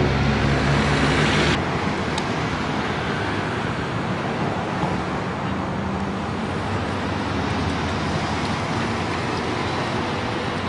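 Street traffic noise: a vehicle loud and close for the first second and a half, cutting off, then a steady wash of road noise.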